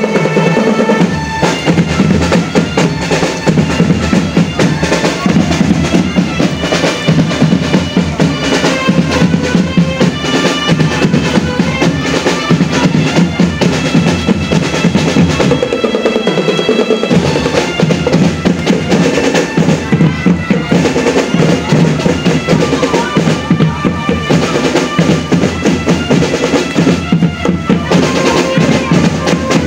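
Marching drum band playing: snare and bass drums in a fast, steady beat, with a sustained melody line carried over the drums.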